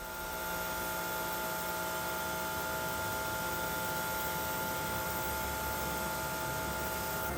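Steady hum with an even hiss and several constant tones, unchanging throughout.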